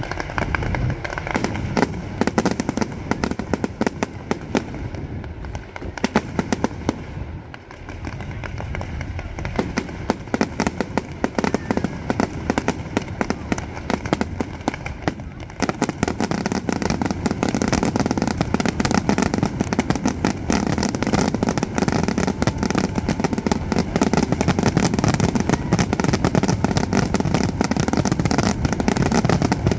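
Fireworks display: a rapid, continuous series of bangs and crackles. About halfway through, the bursts become denser and louder and run together into a near-constant barrage.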